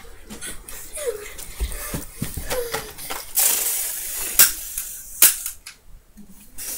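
Pretend gunfight with toy guns: a hissing burst about halfway through, then two sharp gunshot-like snaps, with brief children's voices.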